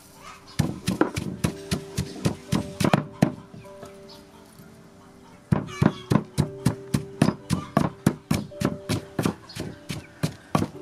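Wooden pestle pounding chilies and garlic in a wooden mortar: quick regular thuds, about three a second, breaking off for about two seconds in the middle and then resuming.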